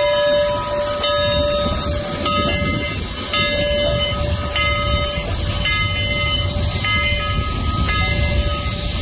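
Southern Railway 4501, a 2-8-2 Mikado steam locomotive, rolling slowly past with a steady low rumble, its bell ringing about once a second.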